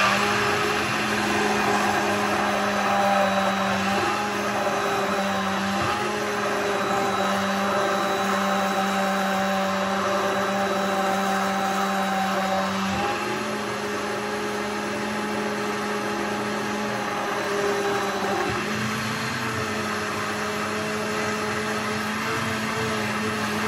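Electric blender switched on and running steadily, whipping yogurt, water and salt into frothy ayran; its motor hum shifts slightly in pitch a few times as it works through the mix.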